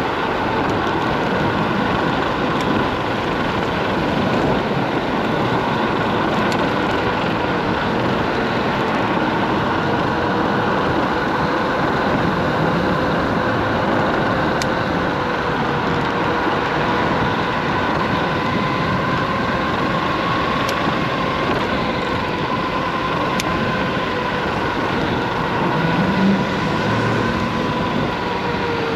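Solar FF Lite dual-motor electric scooter riding at speed: a steady motor whine over wind rush and road noise. Near the end the whine begins to drop in pitch as the scooter slows.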